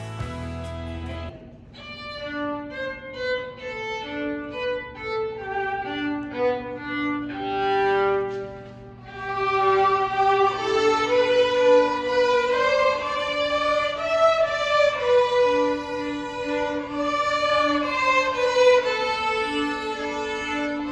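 Violin playing a melody, entering about a second and a half in.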